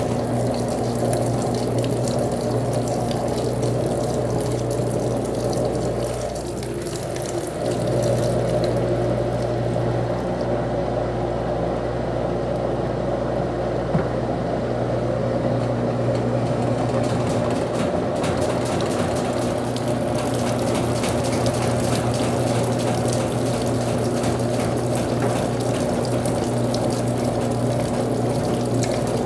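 Brastemp Clean 7 kg washing machine in its rinse cycle: water rushing with a steady electric hum. The hum dips briefly about six seconds in, then carries on as before.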